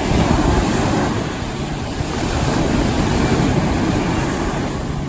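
Surf washing onto a sandy beach, the rush of the waves swelling twice and easing, with wind buffeting the microphone.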